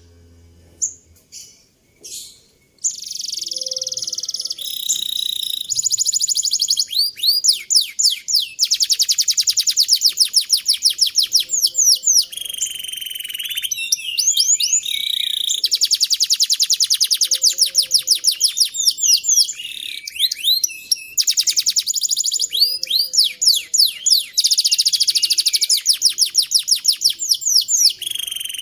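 Domestic canary song: long, fast rolling trills of rapidly repeated notes, broken by short gliding warbles. The first few seconds are nearly quiet, with only a couple of short notes before the song takes off.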